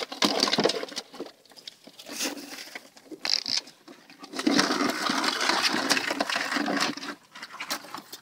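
Dozens of live Dungeness crabs crawling over one another in a mesh crab trap: their shells and claws make scattered sharp clicks and taps against the net, the wire frame and each other. About four and a half seconds in comes a denser stretch of scraping and rustling that lasts a couple of seconds.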